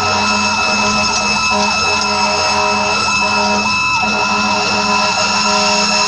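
Fire engine's electronic siren on a fast yelp, sweeping up and down about twice a second, with a steady drone underneath.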